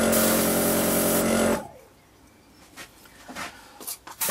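Small airbrush compressor running with a steady hum and a hiss of air, cutting out about a second and a half in and winding down in pitch. A few faint clicks follow before it starts up again at the very end.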